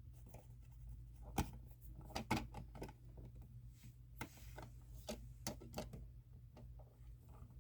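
Faint, irregular clicks and taps of a plastic outlet faceplate being handled and fitted back over a wall outlet, over a low steady hum.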